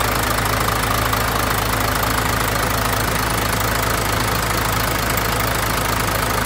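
Mitsubishi 6D17 inline-six diesel engine of a 1996 Mignon dump truck idling steadily with the bonnet open.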